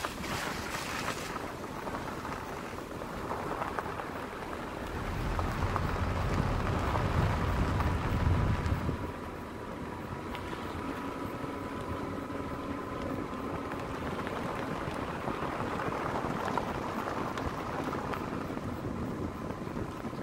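A vehicle driving along a dirt road: a steady mix of engine and tyre noise on the gravel, with a louder low rumble for a few seconds near the middle.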